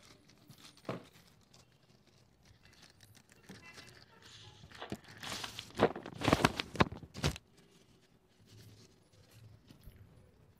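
Plastic wrapping crinkling and crackling as it is handled, with a single click about a second in and a burst of sharp crackles about five to seven and a half seconds in.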